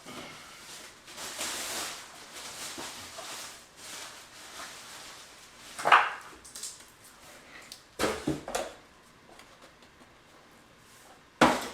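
Handling noises of vacuum cleaner parts and their packaging being unpacked: rustling over the first few seconds, a sharp knock about six seconds in, and thuds around eight seconds and again near the end.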